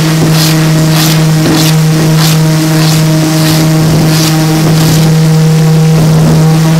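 Hand plane shaving a wooden board, about one and a half strokes a second, each a short swish, stopping a little past halfway through. Underneath is a loud, steady, low machine hum.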